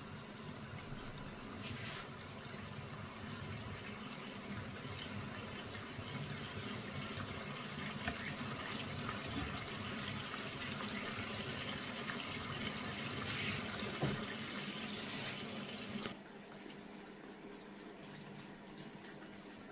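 Saucy chicken and peppers simmering in a wok on a gas hob: a steady bubbling hiss with a single sharper pop. About three-quarters of the way through it drops to a quieter level.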